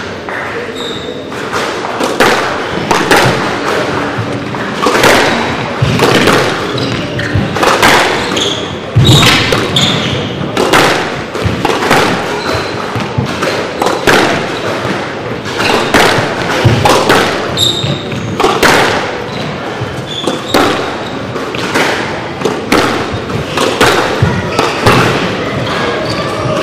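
A squash rally: the ball is struck by rackets and smacks off the court walls, giving a run of sharp hits about a second apart.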